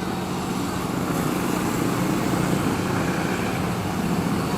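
A motor vehicle engine running steadily, with a constant hum, over general street traffic noise.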